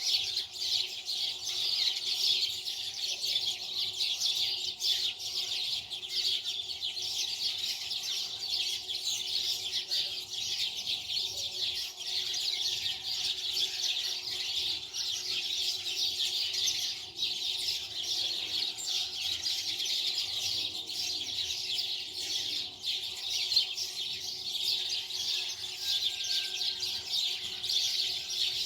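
Many small birds chirping together in a dense, continuous chorus of rapid high chirps, with a faint steady hum underneath.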